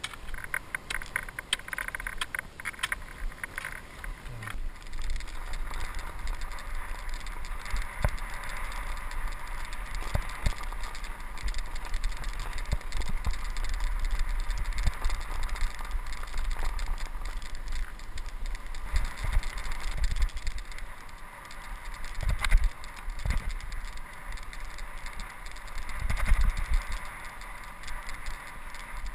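Skates scraping and gliding over snow-covered natural lake ice, with wind rumbling on the microphone and scattered short knocks, likely pole plants.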